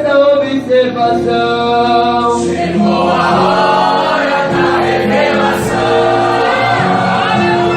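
Choir singing a gospel hymn with musical accompaniment. Held sung notes for the first couple of seconds, then the sound thickens into fuller massed voices about three seconds in.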